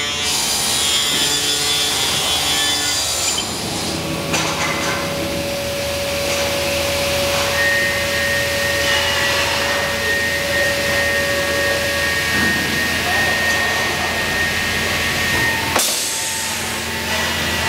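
CNC panel saw running and cutting wood board: steady machine noise with a held whine that shifts in pitch partway through, then a sudden change near the end.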